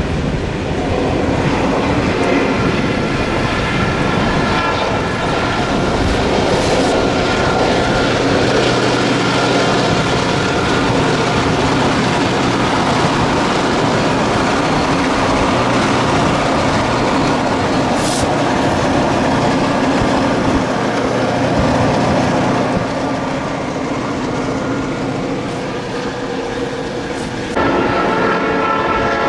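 Iowa Interstate diesel freight locomotives pass over a road grade crossing, their engines running and wheels clacking over the rails. A train horn sounds as a held chord over the rumble. The sound changes abruptly near the end.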